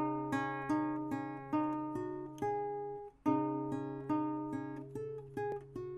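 Acoustic guitar music: single plucked notes ringing out over a sustained bass note. It breaks off briefly about three seconds in, then picks up again.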